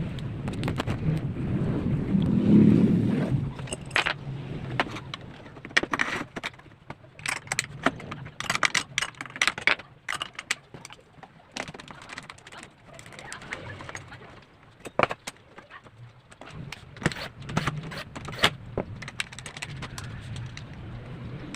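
Irregular clicks, taps and knocks of tools and wood being handled, with a low rumble that swells about two to three seconds in.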